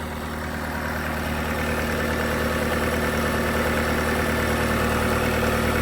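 Bobcat T650 compact track loader's diesel engine idling steadily, growing slightly louder, with no knocks or odd noises. No blow-by shows: the engine is in good health.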